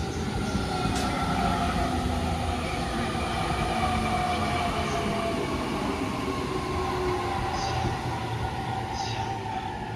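Electric commuter train's wheels rolling slowly over freshly Speno-ground rails, giving a resonant hum. The pitch falls steadily as the train slows into the platform.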